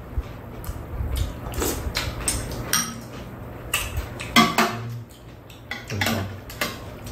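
Metal chopsticks and spoons clinking against bowls during a meal: sharp, irregular taps, a few seconds apart at first and then closer together, over a low steady hum.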